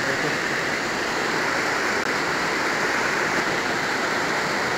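Muddy floodwater rushing in a rain-swollen stream: a steady, churning wash of water noise.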